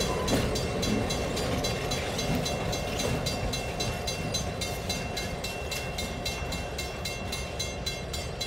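Diesel-hauled passenger train moving away, the locomotive running with a fast, even ticking over a steady rumble that slowly fades.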